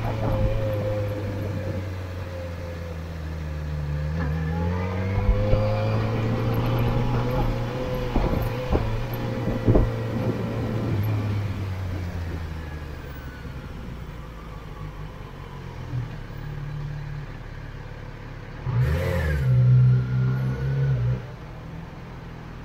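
Motorcycle engine running while riding, its pitch rising as it accelerates about four to six seconds in, then easing off and quieter. A short louder burst of engine noise comes near the end.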